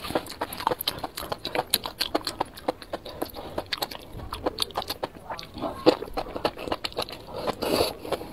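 Close-miked chewing and slurping of enoki mushrooms in thick chili sauce: rapid wet mouth clicks and smacks, with a longer slurp near the end.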